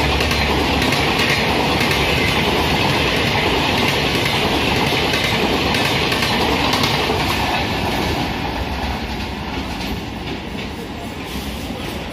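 Bangladesh Railway Intercity passenger coaches passing close by at speed, their wheels clattering over the rail joints. The sound eases off after about two-thirds of the way in, as the last coach goes by and the train draws away.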